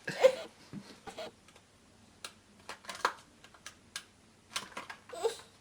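Scattered light clicks and taps of toy food pieces and a toy knife being handled and knocked together, about a dozen irregular knocks, with a brief small vocal sound near the start and again near the end.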